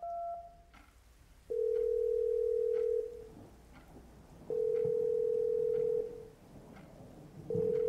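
A telephone call being placed: the last touch-tone key beeps just under a second in, then the ringback tone. It is a steady tone of about a second and a half, repeating every three seconds, heard three times while the line rings unanswered. Faint regular ticks sit underneath.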